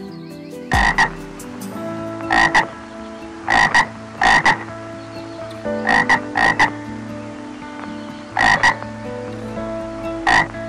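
Frog croaking in short double croaks, repeated every second or two.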